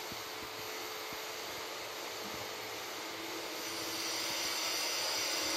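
A steady hiss of background noise that slowly grows louder, with a few faint high tones coming in over the second half.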